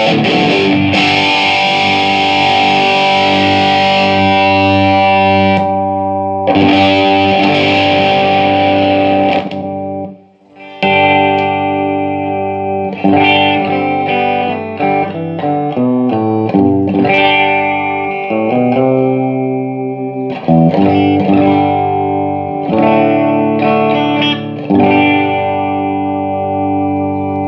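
Electric guitar played through a Laney IRT30 guitar amplifier with distortion: heavy sustained chords for about ten seconds, a short break, then picked single notes and arpeggios with a cleaner, more defined tone. It is a sound test of the amp after its effects-loop attenuation switch was replaced to cure sound cutting out.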